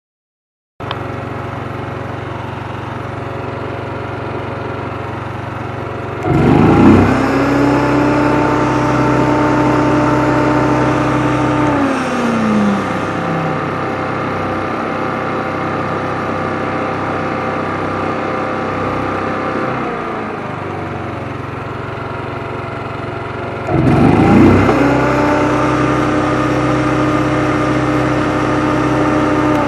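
The engine of a Shindaiwa EGW151MS soundproofed engine-driven welder-generator is running steadily at low speed. Twice, about six seconds in and again about 24 seconds in, it speeds up to a higher, louder steady speed and holds there for several seconds. After the first rise it winds back down to the lower speed.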